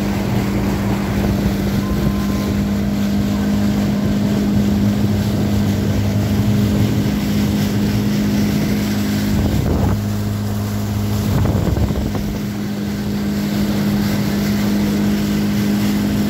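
Motorboat engine running steadily with an even hum, under way on the water, with wind on the microphone.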